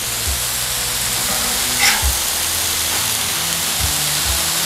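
Beef smash burger patties and onions frying in butter on a hot flat-top griddle, a steady sizzle, with a short scrape of the metal spatula against the griddle about two seconds in.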